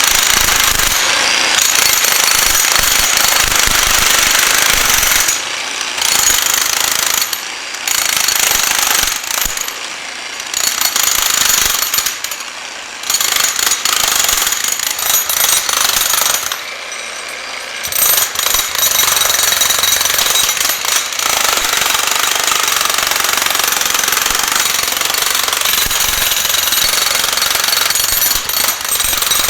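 Jackhammer with a chisel bit hammering into a concrete pillar, breaking it up. It runs steadily with several short pauses, the longest about a second and a half past the middle.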